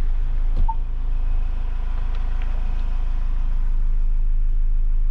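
Vehicle engine running at idle, a steady low rumble, with a single knock and a short electronic beep about two-thirds of a second in.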